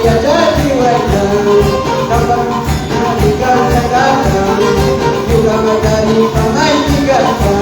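Live worship band music with a steady beat, with a held melody line and light percussion.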